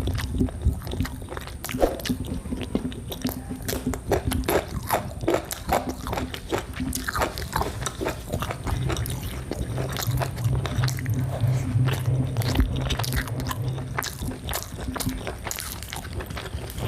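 Close-miked eating of cooked liver: biting and chewing with many irregular wet mouth clicks and smacks. A low hum runs under it for a few seconds in the middle.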